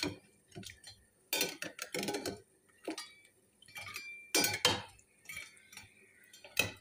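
Metal perforated spoon clinking and knocking against a cut-glass bowl as syrup-soaked lokma dough balls are turned in the syrup: several separate knocks, the loudest about four and a half seconds in.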